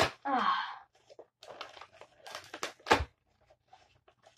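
Cardboard card box being torn open and handled: rustling and crinkling of cardboard and packaging, with scattered small clicks and one sharper crack about three seconds in.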